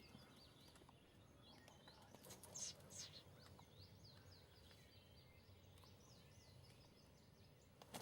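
Faint woodland birdsong: many short, quickly repeated chirps from small birds, with a couple of soft rustles about two and a half to three seconds in.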